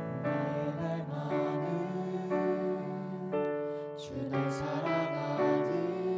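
Live worship band playing a slow, gentle contemporary worship song, with piano, acoustic guitar and singers on sustained notes.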